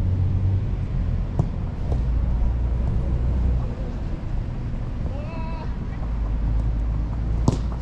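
Outdoor futsal game at a distance: a steady low rumble throughout, a player's shout from across the pitch about five seconds in, and two sharp knocks, one early and one near the end.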